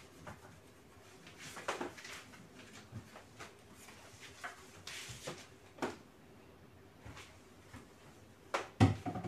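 Quiet household cleaning noises: a cloth wiping a TV cabinet and screen, with scattered light knocks and short hissing squirts from a trigger spray bottle. A louder pair of knocks comes near the end.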